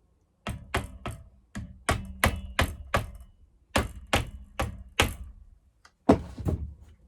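Hammer tapping on a punch or driver, driving a chainsaw's rubber anti-vibration buffer deeper into its handlebar mount. There are about fourteen sharp taps in quick groups of three or four, each ringing briefly. The hardest two strikes come about six seconds in.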